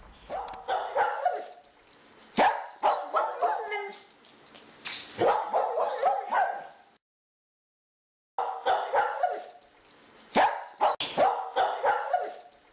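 Dogs barking and yipping in quick runs of sharp barks, with a sudden complete dropout of about a second and a half partway through.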